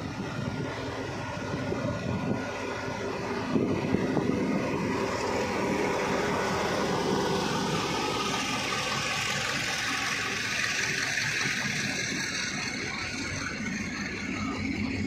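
Dongfeng DF4B diesel-electric locomotive's V16 diesel engine working under load as it hauls a container freight train away from a stand, passing close by. From about halfway the engine fades and the rumble and hiss of the container flatcars' wheels rolling on the rails takes over.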